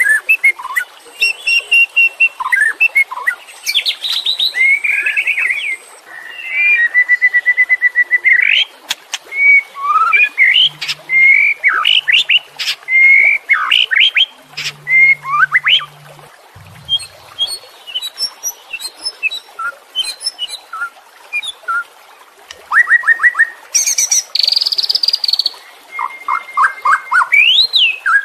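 White-rumped shama (murai batu) singing: loud phrases of varied whistles, rapid trills and chirps, with short pauses between phrases.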